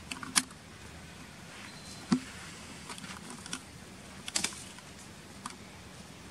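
Scattered sharp clicks and taps, with a duller thump about two seconds in and a quick cluster of clicks past the middle, over a faint steady hum.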